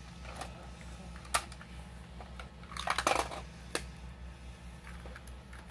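Plastic parts of a toy recycling truck clicking and knocking as it is handled: a few separate sharp clicks, with a short cluster of rattling clicks about three seconds in.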